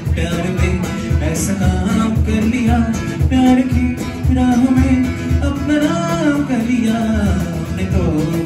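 Live amplified singing with acoustic guitar strumming and a steady cajon beat.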